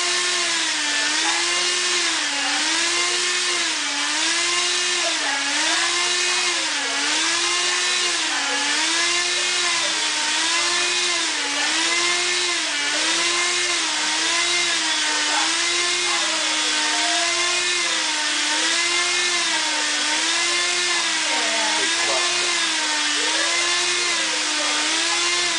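Electric propeller motors of a two-degree-of-freedom lab helicopter model running as a steady whine whose pitch rises and falls evenly about every second and a half.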